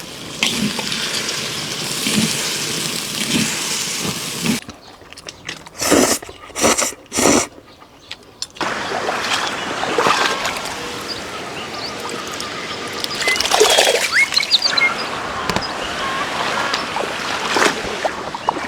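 Small stream flowing, a steady rushing and splashing of water. The rush drops away for about four seconds a third of the way in, leaving a few short splashes, then comes back with a few short high calls over it.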